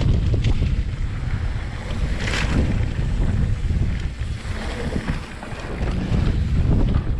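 Wind rumbling against the microphone of a mountain biker's action camera while riding a dirt trail, with tyre-on-dirt noise beneath it. A short hiss stands out about two and a half seconds in.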